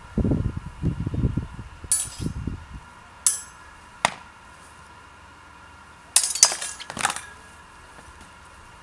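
Steel training swords, an arming sword and a falchion, clashing in sparring: a ringing clash about two seconds in, two sharp strikes near three and four seconds, then a quick flurry of several ringing clashes about six to seven seconds in. Dull low thumps fill the first three seconds.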